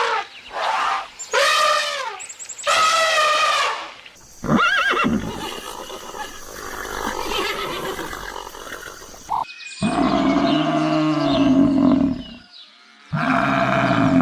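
A series of different animal calls, one after another. Short calls with a wavering pitch come in the first few seconds, a rougher, noisier call follows, and a lower, longer call comes about ten seconds in.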